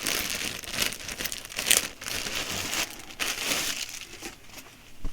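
Packaging crinkling and rustling as it is handled, in irregular bursts that die down near the end.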